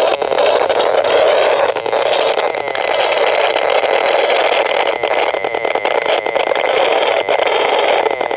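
Radio-frequency meter's audio output sounding a Wi-Fi router's microwave emissions as a loud, continuous buzzing crackle with rapid fine ticking. A steady high tone joins it about two seconds in.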